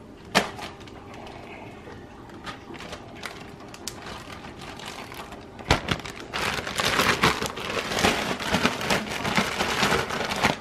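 Plastic zipper bag crinkling and rustling as rabbit pieces are shaken in dry breading. It starts as light rustles and clicks, then turns into dense, steady crinkling from about six seconds in, when the shaking gets going.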